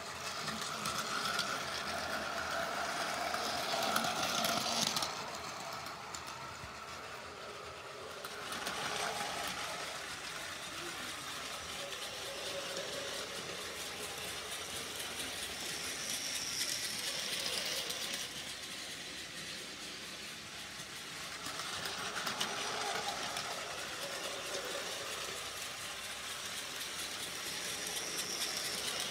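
Motorized toy Shinkansen running on plastic track: a steady whir of its small motor with the rattle of wheels on the plastic rails, swelling several times as the train comes close and fading as it moves away.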